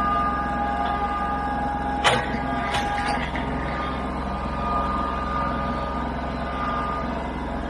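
Tractor engine running steadily with a constant whine over its hum, and a few sharp knocks about two to three seconds in.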